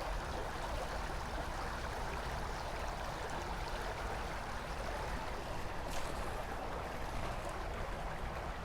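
River water running steadily over the bed, an even rushing noise with a low rumble underneath.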